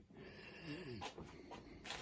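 Faint noises from a person close to the microphone: a brief low murmur or breath and two light clicks.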